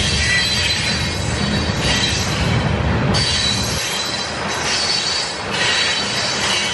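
Freight train tank cars rolling past, their steel wheels squealing in wavering high-pitched tones over the rumble of wheels on the rails. The low rumble drops away a little under four seconds in while the squealing goes on.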